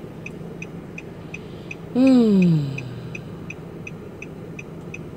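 A woman's voiced sigh: one falling moan about two seconds in, over steady background noise with a faint ticking about three times a second.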